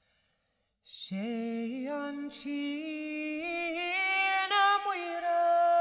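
A woman singing an Irish psalm alone, without accompaniment. She comes in about a second in after a short breath, her melody climbing in small steps to a long held note near the end.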